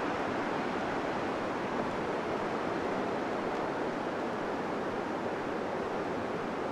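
Steady rushing noise of ocean surf breaking on a nearby beach, continuous and even with no distinct waves standing out.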